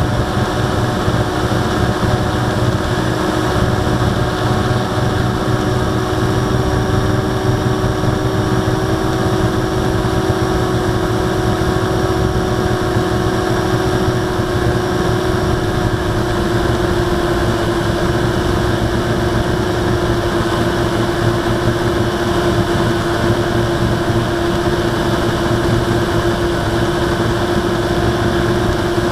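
Blade 350QX quadcopter's brushless motors and propellers, heard through the drone's own onboard camera, humming steadily at a constant pitch as it hovers at altitude.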